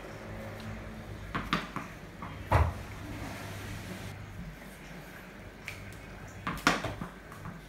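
Tennis ball struck by a cricket bat and bouncing on a hard tiled floor: sharp knocks, a pair about one and a half seconds in, the loudest about a second later, and another loud pair near the end, over a low steady hum.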